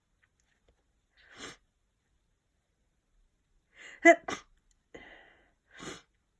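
A person with a sniffly head cold sneezing: a breath in about a second in, a building inhale just before four seconds, then a loud sneeze in two quick sharp bursts, followed by softer breathing.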